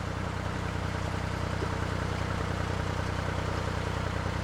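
Narrowboat diesel engine running steadily at cruising revs, a low even drone with a fine regular beat.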